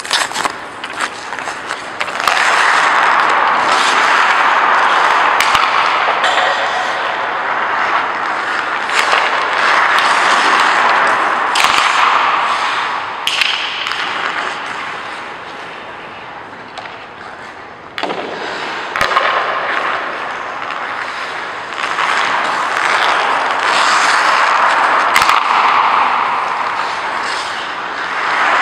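Ice hockey skate blades carving and scraping across the ice in long swells that come and go as the skater passes, with occasional sharp taps of the stick and puck.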